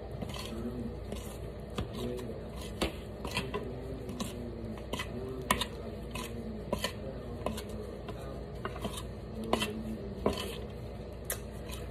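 A metal spoon clinking and scraping against a glass mixing bowl as chicken is pressed and turned in flour. Sharp clinks come irregularly, about once a second, over soft scraping.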